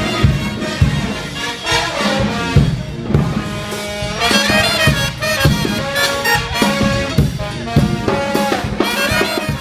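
Music with brass horns playing over a steady drum beat; it cuts off abruptly at the end.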